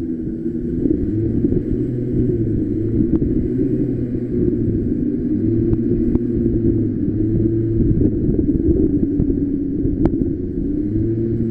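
Go-kart engine running at a steady pace, its pitch wavering slightly up and down over a low rumble, with a few light clicks.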